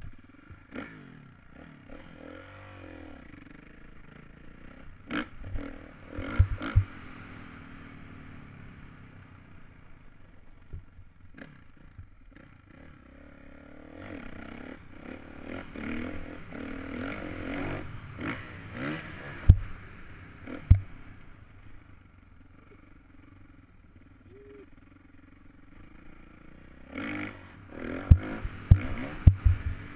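Dirt bike engine revving up and falling back again and again as the bike is ridden over rough ground, heard from the rider's helmet, pulling hardest about halfway through. Sharp knocks and clatter from the bike break in now and then, most often near the end.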